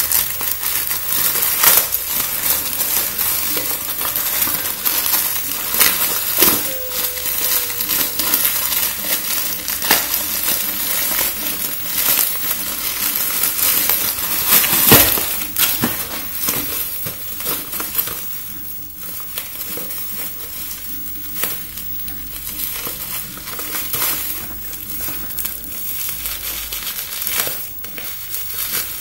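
Packaging of a USB TV tuner stick being opened and handled: continuous crinkling and crackling of plastic and cardboard, with many small clicks and rustles.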